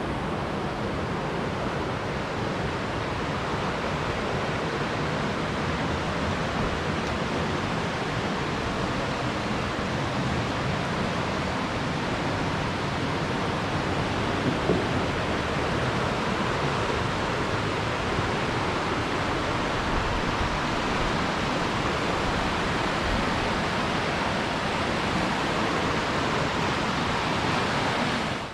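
Steady rush of falling water from a creek waterfall, an even roar with no change, cutting off suddenly at the end.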